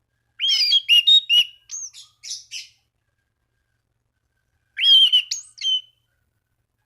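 Anis cendana (orange-sided thrush) singing in two quick bursts of varied, sliding whistled notes, one about half a second in lasting some two seconds and a shorter one about five seconds in, with silence between.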